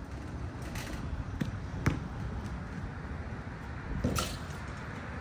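A basketball bouncing a few times at irregular intervals, the loudest bounce just under two seconds in, over steady low background noise.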